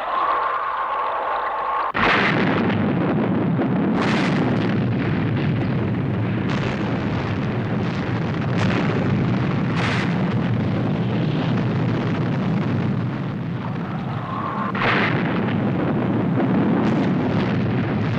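Sound effects of an underwater missile attack. A steady tone opens, then a sudden blast about two seconds in starts a continuous low rumble of explosions, with sharper blasts every second or two.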